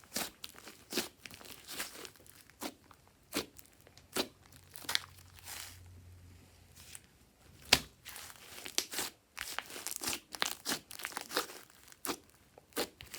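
Glossy slime being mixed and squished by hand, making irregular sticky clicks and crackles, with one sharper click about eight seconds in.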